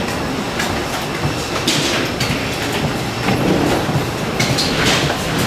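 Suitcase wheels and footsteps rattling and clattering on the metal-framed floor of a jet bridge, with irregular knocks over a steady low hum.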